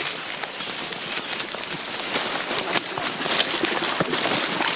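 Dense rustling and crackling of leaves, twigs and a plastic tarp as people push through undergrowth carrying a load in the tarp, with many small snaps throughout.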